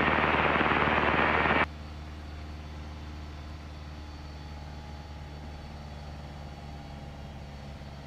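A burst of radio static, about a second and a half long, that cuts off suddenly as the radio is retuned to the new frequency. Under it and after it, the Piper PA-28's piston engine drones steadily in the cabin.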